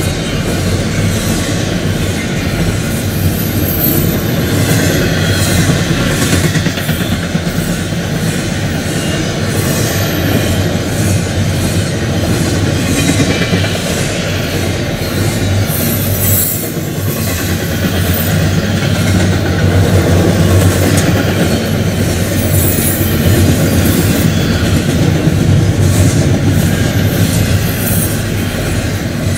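Double-stack intermodal container cars of a freight train rolling steadily past. The wheels rumble continuously, with rapid clicking over the rail joints.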